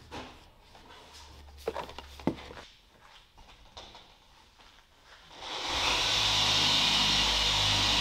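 A few light knocks and handling clicks, then about five and a half seconds in a machine starts up quickly and runs steadily with a loud hiss over a low hum.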